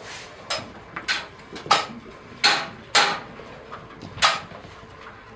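Cutlery clinking against dishes: about six sharp, ringing clinks at irregular intervals.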